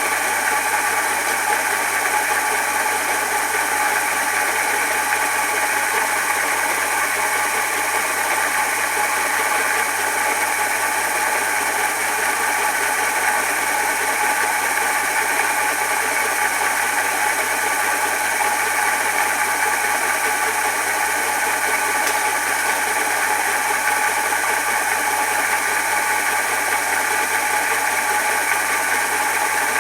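Steady, unbroken machine noise, an even hum and hiss that doesn't change.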